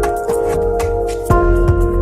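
Background music: sustained chords over a steady bass with light percussion, a new, louder chord coming in about a second and a half in.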